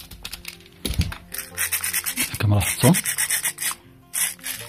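Plastic gearbox housing of a cordless drill being handled after its cover screws are driven in. A screwdriver ticks faintly at first, then from about a second in the plastic housing scrapes and rubs in the hands.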